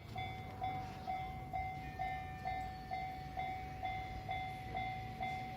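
Japanese railway level-crossing warning bell ringing, a single clanging tone repeated about twice a second, over a steady low rumble.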